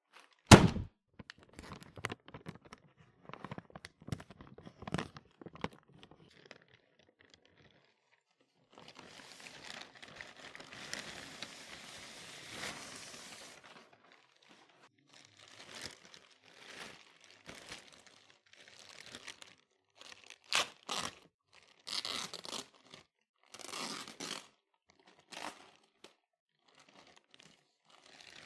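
Clear plastic poly bag crinkling and rustling as hands handle and open it, in short spells with one longer continuous crinkle in the middle and sharper crinkles later on. A loud thump sounds right at the start.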